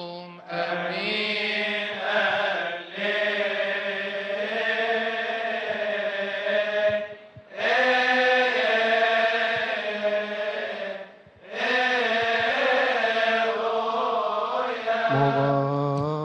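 Coptic liturgical chant: a man sings long, drawn-out melismatic phrases, breaking off briefly twice, with a second, lower voice joining near the end.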